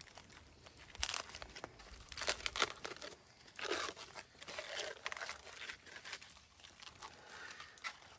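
Aluminium foil crinkling and tearing in a series of short rustling bursts as a hot foil-wrapped package of meat is pulled open.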